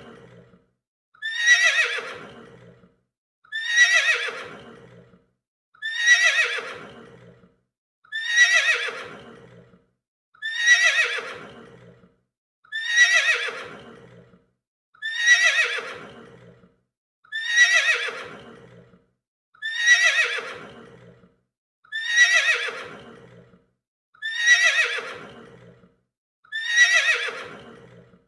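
Horse neighing: the same whinny repeated about every two and a half seconds, a dozen times, each call starting loud and high and sliding down in pitch as it fades.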